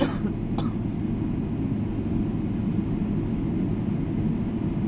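Steady low rumble of a Boeing 777's engines and airflow heard inside the cabin, with two brief clicks about half a second apart near the start.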